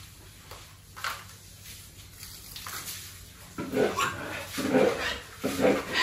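Pigs grunting in their pen: a few faint sounds at first, then from a little past halfway a run of loud, short grunts about once a second.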